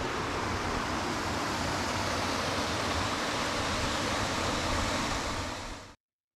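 Rushing water of a small moorland burn and its little waterfall, a steady hiss with a low rumble underneath; it cuts off abruptly near the end.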